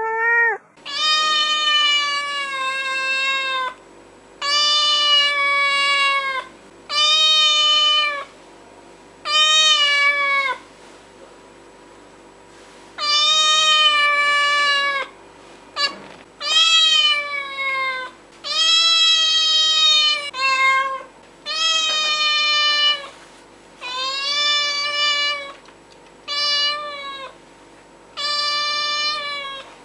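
A cat meowing over and over: about a dozen long, drawn-out meows, each a second or two long with short pauses between, many dropping slightly in pitch at the end.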